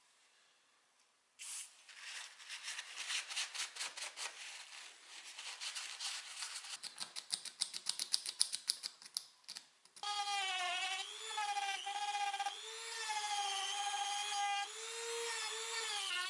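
Rapid rhythmic rubbing strokes on a hard surface, then about ten seconds in a small electric power tool starts running, a steady whine whose pitch dips and recovers several times as it takes load.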